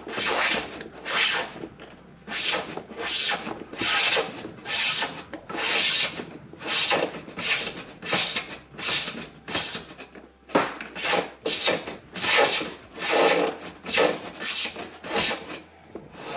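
Cables dragged hand over hand through the slot in a fish finder's mounting bracket, making repeated rubbing strokes, a little more than one a second.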